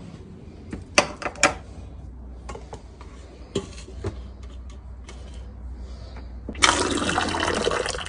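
Stream of water from an electric hot water dispenser pouring into a plastic cup, a steady rush that starts about two thirds of the way in and stops just before the end. A few light knocks and clicks come earlier, about a second in.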